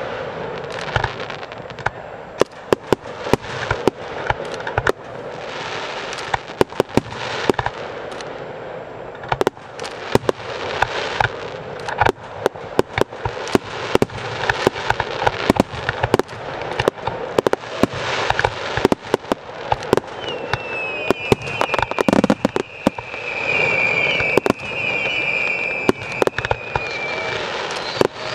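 Professional fireworks display: a dense, rapid run of sharp shell bursts and launch bangs with crackling between them. About two-thirds of the way in, a high wavering whistle rides over the bangs for several seconds.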